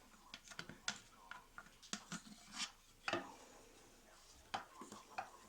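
Quiet scattered clicks, knocks and brief rubbing of kitchen utensils and containers being handled and set down. No blender is running.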